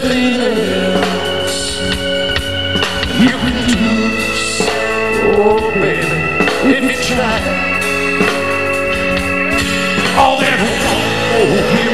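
Live country-rock band playing an instrumental passage: held organ chords over drums, with guitar lines bending in pitch.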